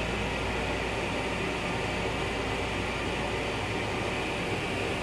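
Steady hiss and low hum of a Long Island Rail Road M9 railcar, heard from inside its small restroom.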